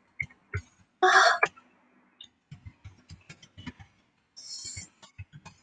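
A woman's short, loud breathy huff about a second in, with a softer hiss near the end, among scattered soft clicks and taps.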